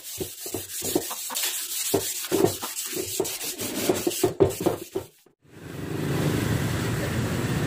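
Hand sanding of a Honda CG125's painted steel fuel tank with a sanding sponge: quick back-and-forth rubbing strokes, about three a second. About five seconds in the sanding stops and a steady background noise takes over.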